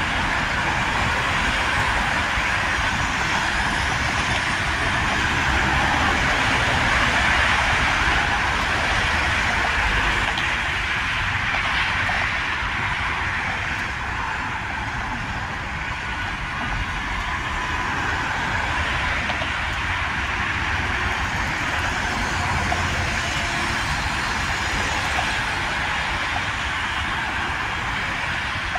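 Steady traffic noise from cars and vans passing at speed on an elevated expressway, mostly tyre noise on the road surface, swelling as a group of vehicles goes by and easing a little as traffic thins.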